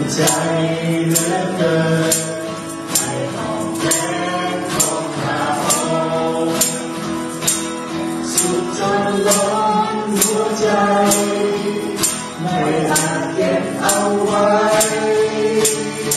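A Thai worship song sung by a small group of voices, with acoustic guitar accompaniment and a tambourine struck on the beat about once a second.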